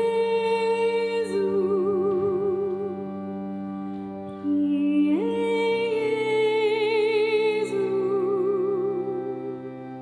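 Slow sacred music: a solo melody line with wide vibrato holds long notes over sustained accompanying chords. The melody eases off briefly about four seconds in, then slides upward into the next phrase.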